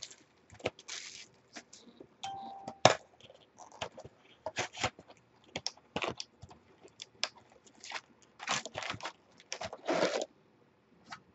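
Trading-card box being opened and its packs pulled out and handled: irregular crinkling, tearing and tapping of cardboard and pack wrappers.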